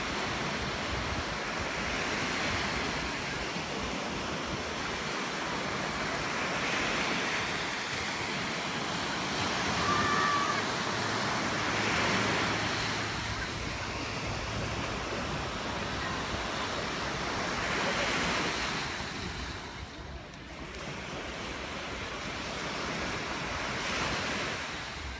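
Small waves breaking on a sandy beach, the surf rising and falling back every five seconds or so.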